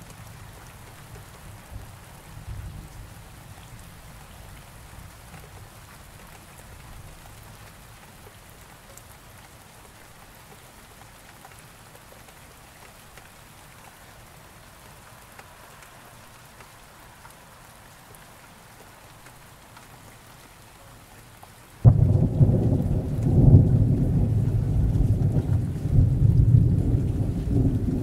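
Steady rain falling, with a low rumble of thunder fading away over the first few seconds. About 22 seconds in, a loud thunderclap breaks in suddenly and keeps rolling in swells.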